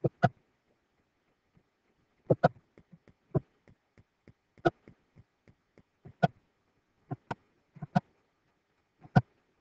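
Computer mouse clicking: about ten sharp clicks at irregular intervals, with fainter ticks between them, as numbers are entered on an on-screen calculator keypad.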